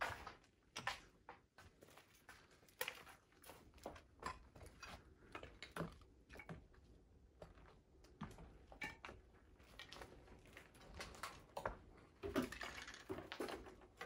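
Footsteps over a floor littered with broken plaster, tiles and debris: an irregular run of light crunches, clicks and scuffs as people walk.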